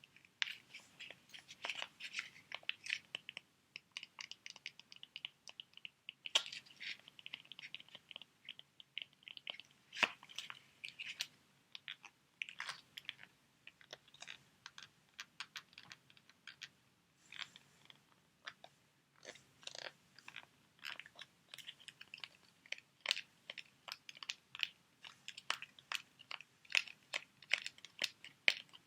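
Sheet mask packets being crinkled and handled: a dense, irregular run of short crackles and clicks.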